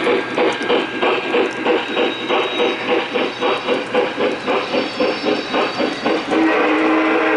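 Electronic sound system of a Lionel B&O EM-1 2-8-8-4 model steam locomotive chuffing in an even rhythm, about four chuffs a second, with light clicking from the wheels on the track. About six seconds in the chuffing gives way to its steam whistle blowing a steady chord.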